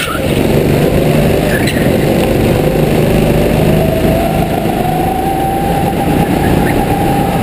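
Go-kart engine heard from the kart itself, running hard with its pitch climbing slowly and steadily as it accelerates.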